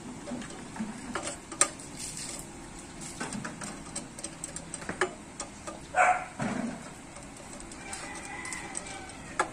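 Scattered sharp metal clicks and taps from pliers working on a small generator engine's parts. A chicken calls briefly about six seconds in.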